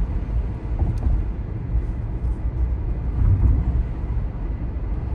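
Road and tyre noise inside a moving Tesla's cabin: a steady low rumble with no engine sound, as the car is electric. A light click about a second in.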